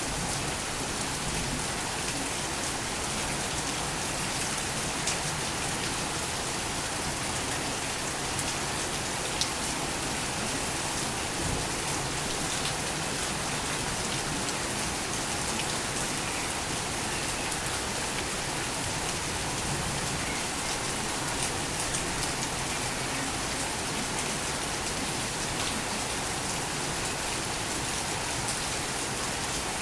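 Torrential rain falling steadily on surfaces: a dense, even hiss with scattered sharper drop hits.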